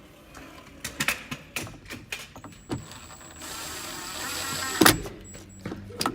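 Knocks and clicks of parts and tools being handled, then a small electric motor whirs steadily for about a second and a half and stops with a sharp clack.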